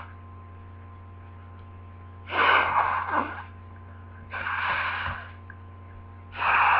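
A person sneezing and gasping in an allergic sneezing fit, which the owner puts down to lily pollen: three bursts about two seconds apart, the middle one quieter.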